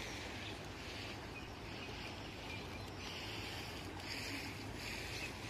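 Steady rushing of the fast-flowing Teesta River in flood, with a higher hiss that swells and fades about once or twice a second.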